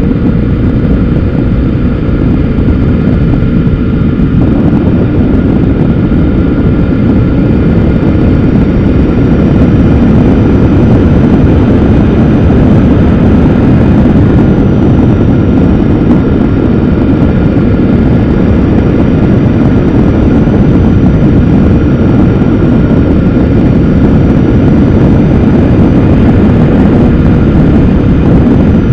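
Motorcycle cruising steadily along a winding highway: heavy wind rush on the mounted camera's microphone over the engine's even drone, with no changes in speed.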